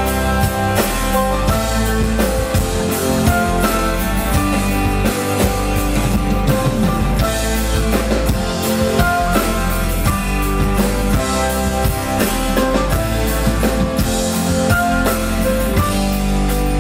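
Loud amplified pop-rock music with a steady drum-kit beat and guitar, playing the instrumental introduction of a song through a stage sound system.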